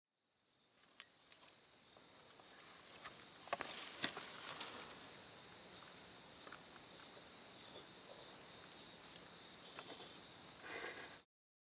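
Faint outdoor ambience: a steady high-pitched hum with scattered soft clicks and knocks. It fades in just after the start and cuts off suddenly near the end.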